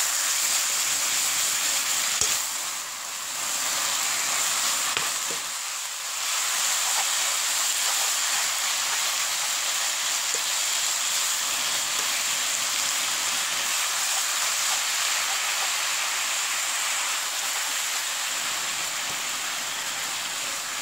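Marinated beef and sliced vegetables sizzling as they are stir-fried in a hot wok and turned with a wooden spatula. The sizzle is steady, dipping briefly twice in the first six seconds.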